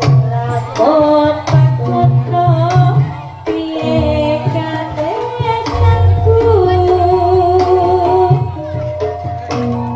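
Live jaranan gamelan accompaniment: kendang hand drums beating under a sliding sung melody, with a deep low note coming in about six seconds in.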